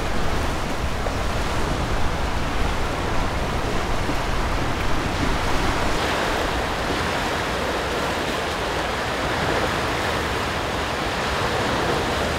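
Small waves washing onto a sandy, rocky shore, with wind, as a steady wash of noise. About halfway through the recording switches from a Sennheiser MKH8050 to a Sony XM1 shotgun mic, and the sound turns brighter.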